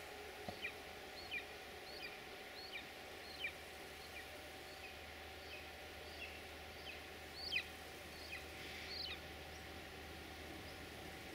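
A small bird calling over and over in short, high, falling chirps, about one every half-second to second, with a louder chirp about seven and a half seconds in. A faint steady hum lies beneath.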